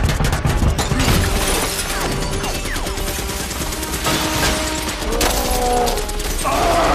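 Action-film battle sound mix: rapid gunfire and crashing impacts with glass shattering, under a music score.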